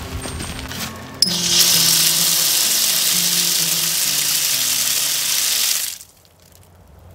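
Water from an outdoor spigot (hose bib) on a house wall spraying out in a hissing rush. It starts suddenly about a second in and is shut off abruptly about four and a half seconds later. The water is run briefly to warm the spigot before it is insulated against a hard freeze.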